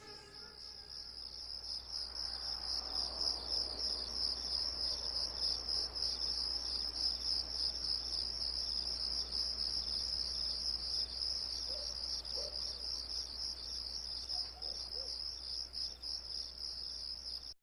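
Crickets chirping in a steady, rapidly pulsing high trill over a soft hiss, with a few brief lower chirps near the end.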